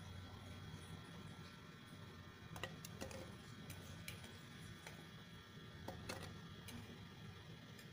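Peeled garlic cloves dropped by hand into a clear plastic blender cup, each landing with a light click, several at irregular moments. A faint steady hum lies underneath.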